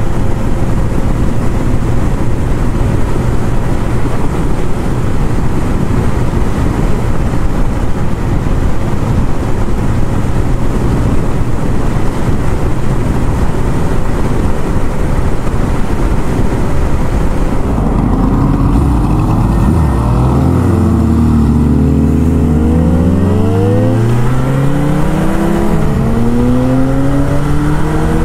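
Motorcycle riding at a steady cruise with heavy wind noise over the engine. About two-thirds of the way in the wind drops away and the engine pulls up through several gears, its pitch rising with each gear and falling back at each shift.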